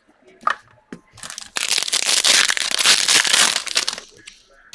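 Plastic wrapper on a pack of football trading cards crinkling and crackling as it is handled and opened, a dense run of crackle lasting about two and a half seconds from a little after the first second.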